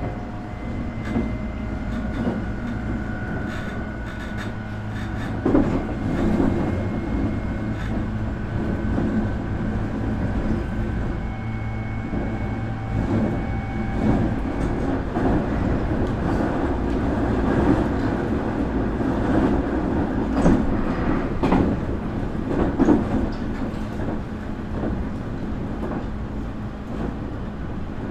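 Running sound of a Nankai 8300-series electric train heard inside the car: a steady rumble of wheels on rail, with a few sharp clacks over rail joints. Faint high tones from the IGBT VVVF inverter and its enclosed traction motors come and go at different pitches.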